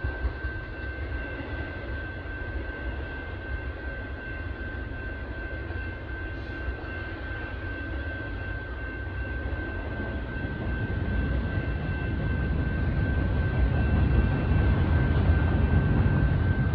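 Intermodal freight train rumbling, growing louder about ten seconds in, with a steady high whine throughout.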